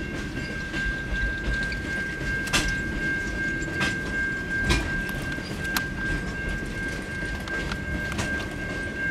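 Freight wagons of a long train rolling past: a steady low rumble of wheels on rail, broken by a few sharp clicks and knocks, with a steady high-pitched tone running over it.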